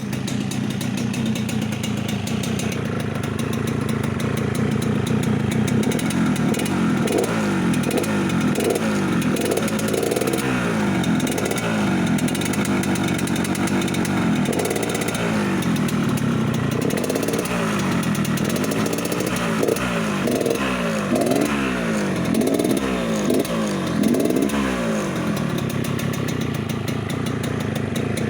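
Yamaha RX-King's two-stroke single-cylinder engine on its stock exhaust with the rough snoring 'ngorok' tone. It idles, is revved in many quick rising-and-falling blips from about seven seconds in, and settles back to idle near the end.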